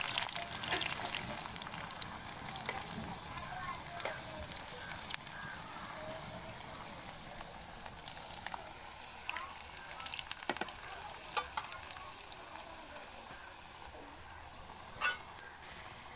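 Hot oil sizzling and crackling steadily in an iron kadai as whole boiled eggs fry, with a metal spatula scraping and clicking against the pan now and then. There is a sharp knock near the end.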